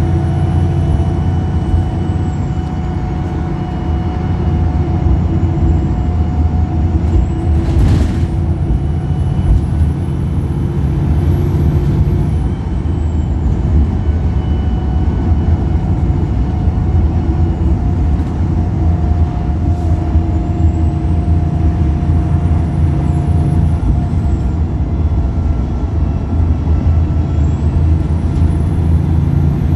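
Wright Pulsar single-deck bus's diesel engine running steadily under way, with a faint high whine that rises and then drops away several times. A brief sharp burst of noise comes about eight seconds in.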